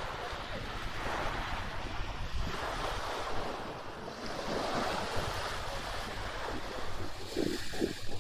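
Sea waves washing in, the hiss swelling and falling back every couple of seconds, with wind buffeting the microphone. Near the end come a few short, low thumps.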